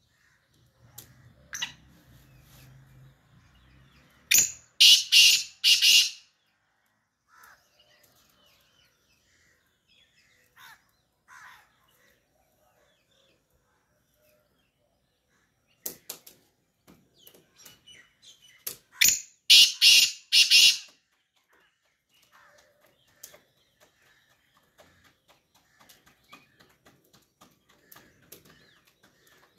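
Black francolin (kala teetar) calling twice, about fifteen seconds apart. Each call is a quick run of four or five loud notes lasting about two seconds.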